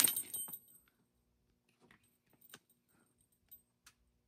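A brief metallic jingle right at the start, then a few faint, scattered clicks.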